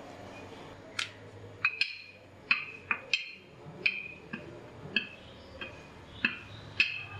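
Wooden rolling pin clicking and knocking against a stone countertop as dough is rolled out thin, about two sharp knocks a second with each stroke of the pin, starting about a second in.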